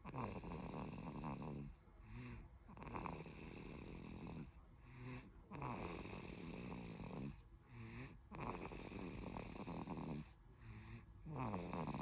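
A five-month-old baby snoring in sleep: about four rough snoring breaths, roughly three seconds apart, each followed by a short, softer breath.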